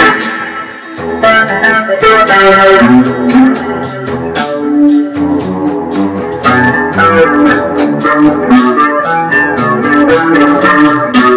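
Guitar and keyboard jamming together: a run of short plucked guitar notes over held keyboard chords, continuous throughout.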